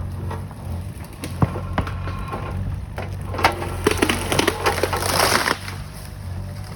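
Mini excavator's engine running steadily while dead timber cracks and splinters under its push. A dense burst of snapping and crashing wood comes from about three and a half to five and a half seconds in.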